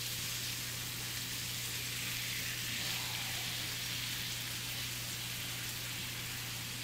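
Tilapia fillets frying in oil and butter in a pan, a steady even sizzle, with a low hum underneath.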